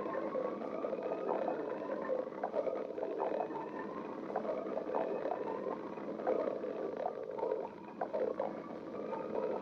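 A hungry person's stomach growling: long whining rumbles that slide slowly in pitch, mixed with irregular bubbling gurgles.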